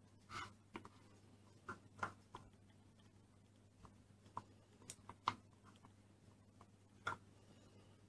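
Scattered soft clicks and taps, irregular and well spaced, of plastic Play-Doh moulds and tools being handled, over a faint steady low hum.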